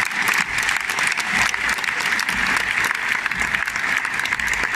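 Crowd in a packed bullring applauding: dense, steady clapping.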